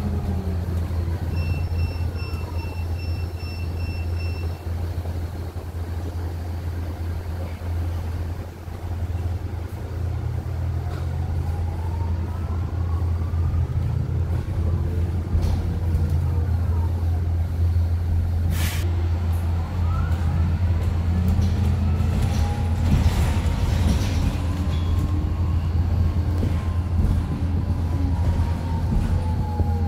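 BYD K9 electric bus running, its electric drive whining in tones that glide up and down in pitch as the bus speeds up and slows, over a steady low hum. A run of quick even beeps sounds near the start, and a sharp click comes about two-thirds of the way through.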